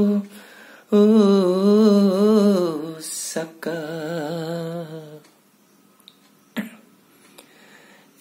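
A man singing a Limbu hakpare samlo with no accompaniment: two long, wavering phrases with an audible breath between them, the second sung lower and falling away. A pause of about three seconds follows, broken only by a few small clicks.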